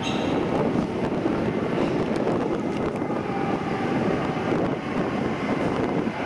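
Rinkai Line 70-000 series electric train approaching along the tunnel into an underground station: a steady rumble of wheels and running gear on the rails.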